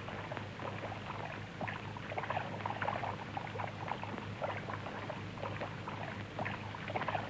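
Old film soundtrack with no dialogue: a dense scatter of irregular faint ticks and rustles over a steady low hum.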